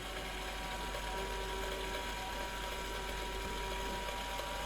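Lego Power Functions electric motor running steadily and driving the grabber arm's plastic gear train, an even whirr with a steady high whine.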